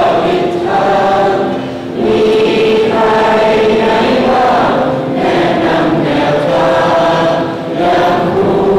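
A large group of students singing together in unison, a slow song of long held notes in phrases with short breaks between them.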